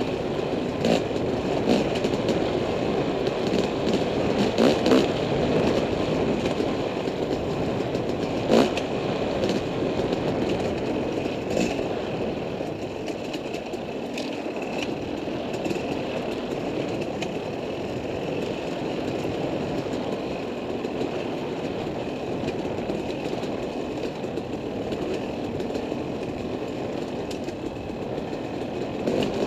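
Dirt bike engine running steadily while under way, with a few sharp knocks, the loudest about eight and a half seconds in. A little quieter after about twelve seconds.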